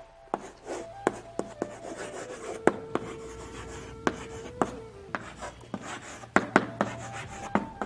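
Chalk writing on a blackboard: a quick run of sharp, irregular taps and scratches as letters are written.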